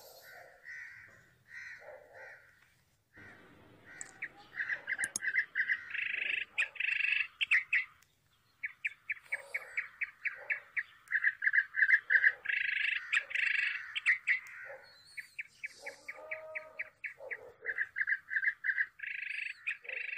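A bird chirping in rapid trills of sharp, high notes, coming in bouts of a second or two with short pauses between them.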